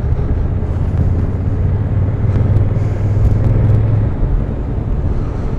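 Triumph inline three-cylinder motorcycle engine running as the bike rides at low town speed, a steady low hum that swells slightly from about two to four seconds in.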